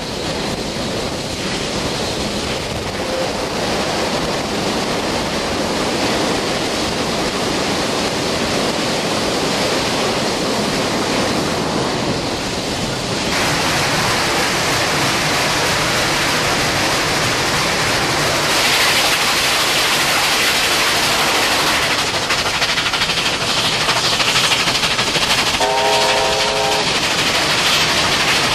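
NSW 38 class steam locomotive under way, a steady loud rush of exhaust and running noise. A short whistle blast of about a second sounds near the end.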